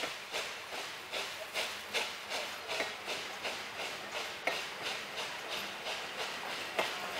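Steam locomotive 475.111 hauling its passenger train, its exhaust chuffing in a steady beat of about two and a half a second, with the coaches rolling past and a few sharp clicks from the wheels on the rails.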